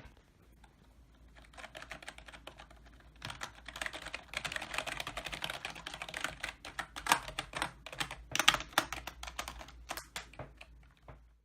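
Typing on a Logitech G213 Prodigy, a membrane-switch gaming keyboard. Scattered key presses give way to fast, continuous typing, with a few louder single key strikes, and the typing stops near the end.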